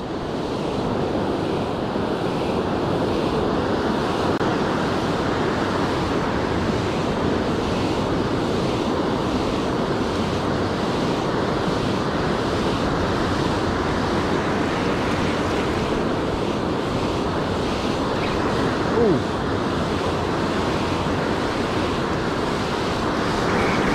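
Ocean surf: waves breaking and washing up the beach in a steady, continuous rush.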